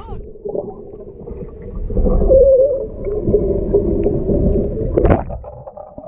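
Muffled water sound heard underwater in a pool: bubbling and sloshing water, with a short knock about five seconds in.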